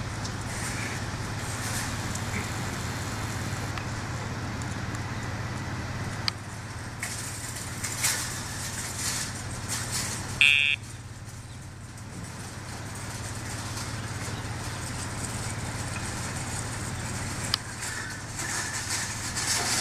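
Parking-lot ambience: a steady low hum of traffic and vehicles. About halfway through there is one short, high-pitched beep.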